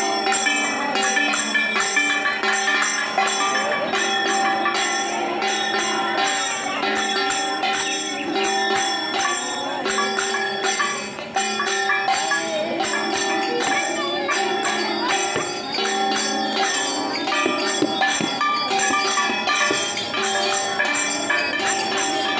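Brass hand cymbals (kartal) ringing and clashing in a steady, quick rhythm, with voices singing a devotional chant.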